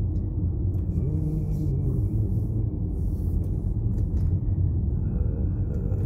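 Steady low engine and road rumble heard inside a taxi driving along a narrow paved mountain road, with brief hissy swells about one and three seconds in.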